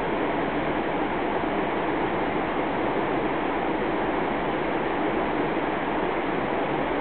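Steady rushing of a mountain river below, an even wash of noise that does not change.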